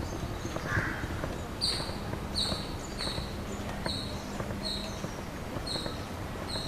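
A bird calling over and over: a run of about eight short, high, even notes, a little more than one a second, starting just under two seconds in.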